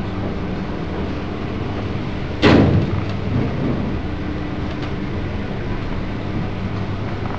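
Passenger lift car travelling upward: a steady low hum from the running lift, with a single loud thump about two and a half seconds in.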